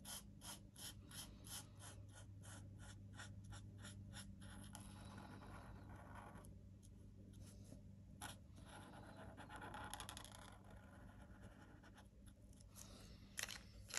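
Faint scratching of an alcohol marker's tip (Stampin' Blends) drawn over cardstock in short outlining strokes, about three a second for the first few seconds, then slower and lighter. A steady low hum runs underneath.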